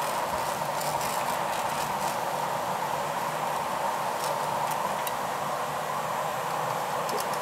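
Steady rushing roar of a glassblowing studio's gas burners and fans, with faint light clicks of the steel blowpipe rolling along the bench rails.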